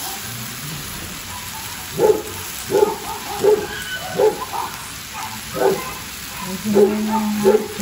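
A dog barking in a series of short barks, starting about two seconds in, with a pause in the middle before a few more near the end.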